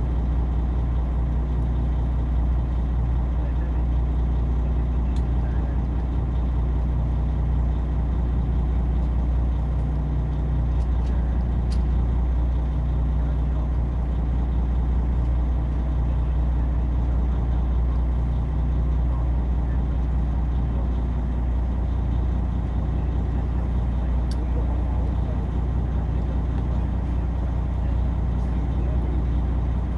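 Fishing boat's engine running steadily, a low drone, with a few faint ticks.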